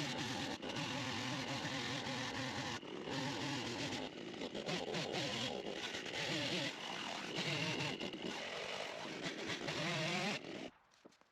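Chainsaw running and cutting wood, its engine revving up and down as it bites. It stops suddenly near the end.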